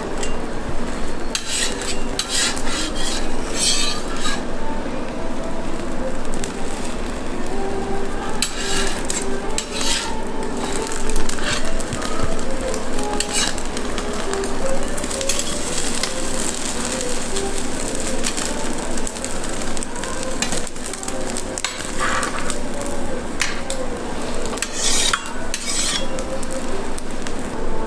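Egg and toast sizzling on a steel flat-top griddle, with metal tongs and a metal spatula scraping and clicking against the griddle again and again as the egg sheet is rolled around the sandwich.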